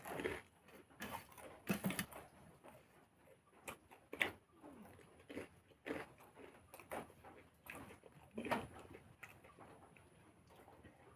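Mouth sounds of a person eating a meal: chewing with irregular wet smacks and clicks, about one a second.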